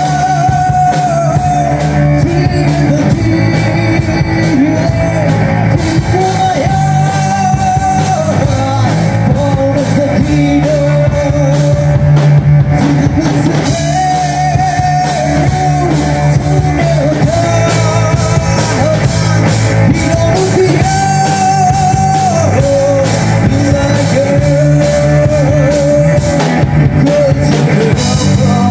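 Rock song playing loudly: a singing voice carrying a wavering melody over guitar, bass and drums.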